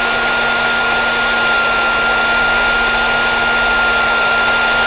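Handheld electric heat gun running steadily, its fan blowing with a steady high whine, as it shrinks heat-shrink butt splice connectors on wiring.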